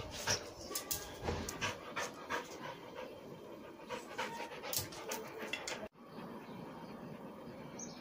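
Dog panting, with irregular scratchy strokes of a bristle brush through its coat over the first half. The sound breaks off abruptly just before six seconds in, then the panting goes on more evenly.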